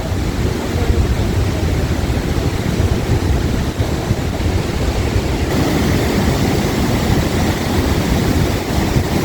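Steady rush of the Niagara River's rapids flowing over rocks, with wind buffeting the microphone.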